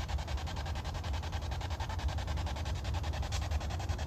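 Spirit box sweeping through radio stations: a steady hiss of static chopped into rapid, evenly spaced pulses, with a low hum underneath.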